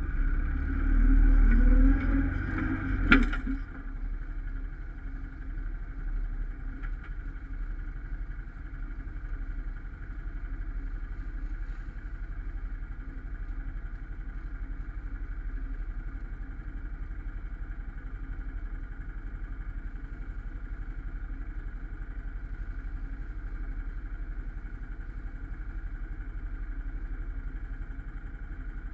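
Quad-bike (ATV) engines idling steadily, with one engine revved briefly in the first few seconds, ending in a sharp knock about three seconds in.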